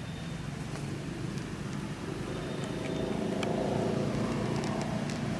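A motor vehicle's engine running, growing louder about halfway through, with a few faint clicks over it.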